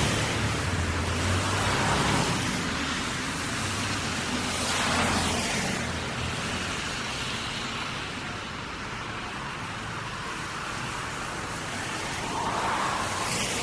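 Cars passing one after another on a wet street, each a rising and falling swell of tyre hiss on wet asphalt with a low engine hum under the first ones; a quieter lull comes in the middle before another car approaches near the end.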